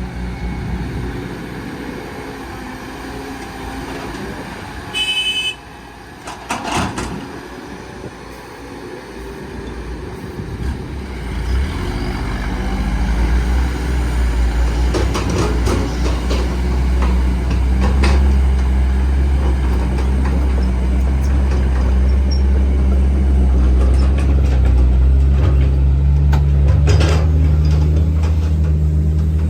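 Heavy diesel engine running, growing louder and heavier from about twelve seconds in as it comes under load. There is a short high beep about five seconds in, and a few knocks soon after.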